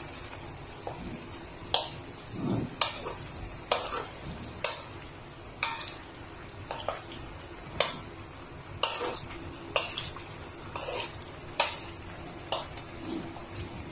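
Wooden spatula stirring cooked penne pasta in a metal pan, scraping and knocking against the pan at an uneven rhythm of about once a second.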